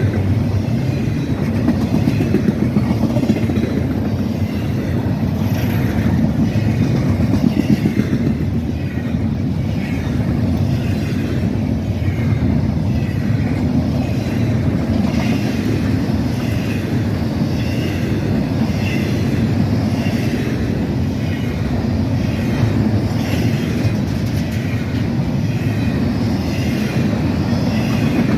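Double-stack container train of loaded well cars rolling past, a steady heavy rumble of steel wheels on rail. Faint short high squeals come and go in the second half.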